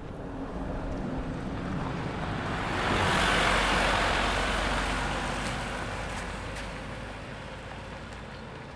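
A road vehicle driving past, its rushing tyre noise swelling to a peak about three seconds in and then fading away slowly.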